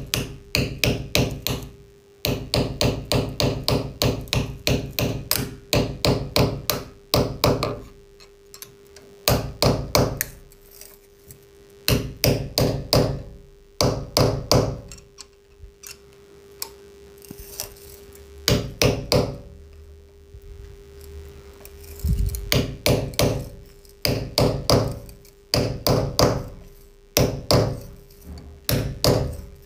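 A steel hammer tapping lightly on the back of an old flat-blade screwdriver held in pliers, chiselling a hole into a plastered brick wall. The taps come several a second in runs, with short pauses between runs while the screwdriver is twisted in the hole.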